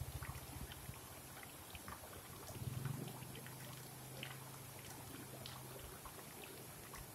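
Small rocky river rushing over cascades and little waterfalls: a steady watery hiss with scattered splashes. A low hum swells about two and a half seconds in and fades again.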